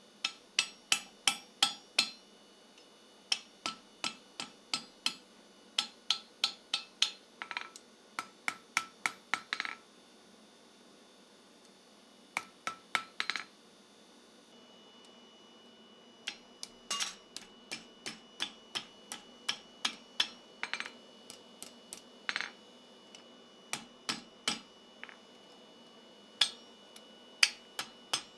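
Blacksmith's hand hammer striking steel on an anvil, forging a chest handle. The blows come in runs of about three a second with short pauses between runs, and each blow rings.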